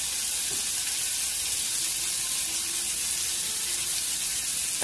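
Sliced onions sizzling in hot oil in a frying pan: a steady frying hiss.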